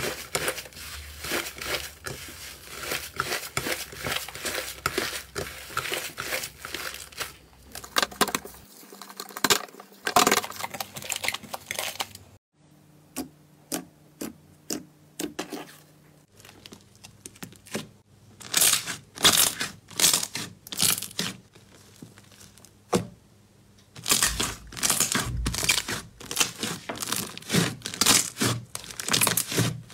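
Hands kneading, squeezing and pressing slime: dense, rapid crackling and popping. This thins to a few scattered pops and squelches about twelve seconds in, then comes back in loud runs near the end.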